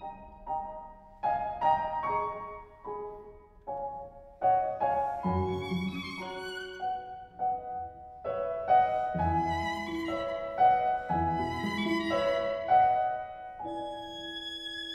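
Classical chamber music played live: a violin line over piano, with bowed strings sounding throughout and notes changing every second or so.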